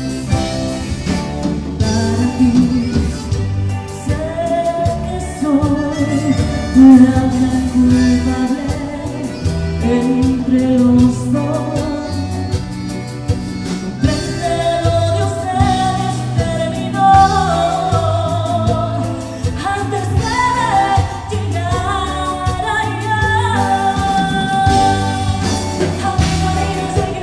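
A live tejano cumbia band playing, with a woman singing lead over button accordion, electric guitar, bass and drum kit, all to a steady dance beat.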